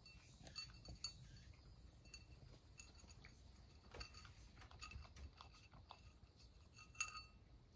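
Cat eating from a food bowl: faint scattered clicks and small clinks against the dish, with one louder ringing clink about seven seconds in.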